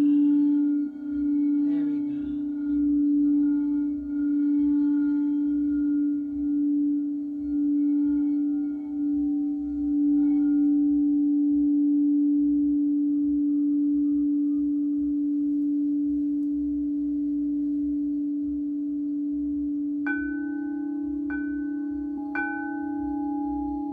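Frosted crystal singing bowl, rubbed round the rim with a mallet, singing one steady low tone that wavers a little at first and then rings on evenly. Near the end, three mallet strikes about a second apart add a brighter ringing tone over it.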